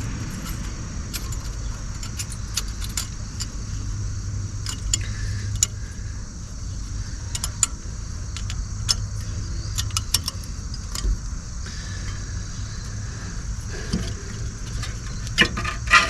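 Light metallic clicks and clinks of steel brake pad slide clips being worked into a brake caliper bracket, with a few sharper, louder clicks near the end, over a steady low hum.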